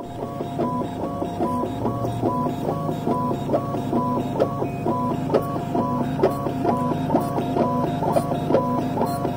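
Dental milling machine grinding a porcelain block under a water spray. The machine runs in an even mechanical pattern with pitched whines that repeats about twice a second.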